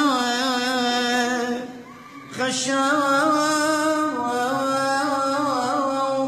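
Solo male voice chanting an Assyrian Aramaic hymn (a madrasha) in long held notes with wavering ornaments. It breaks off briefly for a breath about two seconds in, then goes on.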